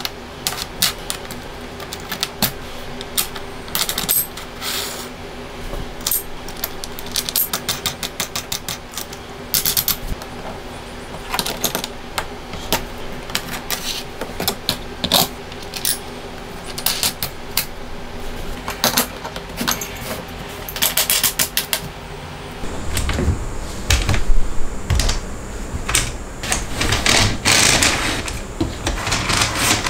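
Small steel hardware clinking and clicking: nuts, bolts and washers handled and tightened with an adjustable wrench on aluminium T-track rails, in single clicks and quick rattling runs. About three-quarters through it changes to louder knocks and rubbing as the assembled wood-and-aluminium jig frame is shifted by hand.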